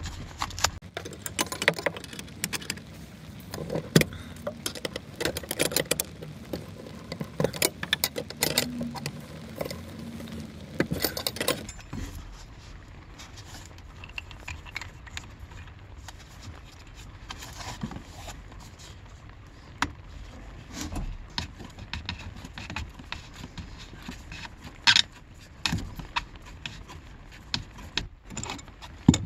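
Metal clicks, clinks and rattles from handling flare-nut fittings and an adjustable wrench while a copper refrigerant line set is threaded onto a mini-split head unit. The clicking is busy for the first twelve seconds, then sparse, with one sharp click about 25 seconds in.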